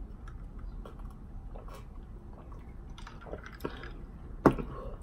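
Sipping and swallowing from a paper cup, with small wet mouth clicks, then the cup set down on the table with one sharp tap about four and a half seconds in, the loudest sound.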